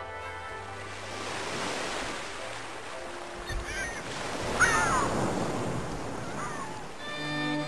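Sea surf washing over rocks, the rush swelling to its loudest about two-thirds of the way through. A few short, high, wavering calls come in the middle.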